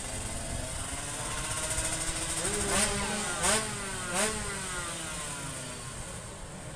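Tuned two-stroke drag bike accelerating hard, its engine note climbing in pitch. It peaks three times in quick succession around three to four seconds in, dipping and recovering with each gear change. The note then falls and fades away.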